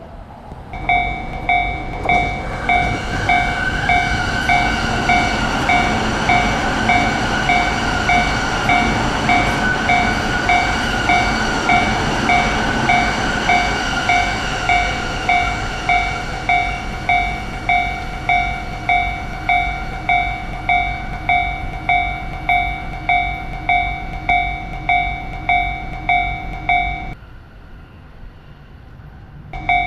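Japanese railroad crossing alarm ringing its steady 'kan-kan' bell, just under two strikes a second, while a train runs past with a rumble and a faint motor whine that fades out past the middle. The bell stops about 27 s in and starts again just before the end.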